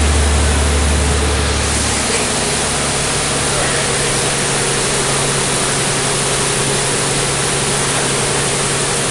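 Steady rushing and splashing of floodwater as a city bus drives through a flooded street, heard from inside the bus over its engine. A deep engine drone drops away about two seconds in.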